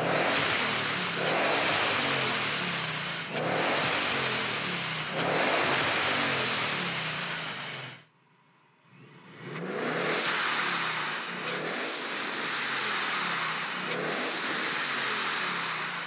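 Supercharged Mustang GT V8 being free-revved in repeated blips, about one every two seconds, while a ProCharger ProFLO blow-off valve vents boost to open air with a loud whooshing hiss. The sound cuts off abruptly about eight seconds in, then the revving and venting start up again.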